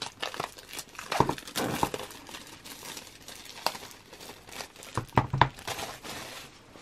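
Rustling and crinkling of a CD album's packaging being handled and moved aside, with a few sharp clicks and light knocks, the strongest about a second in and again around five seconds in.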